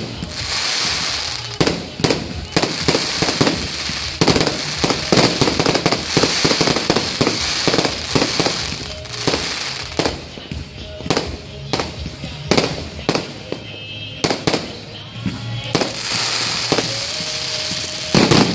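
Aerial fireworks going off in quick succession: a dense, irregular run of sharp bangs with crackling between them.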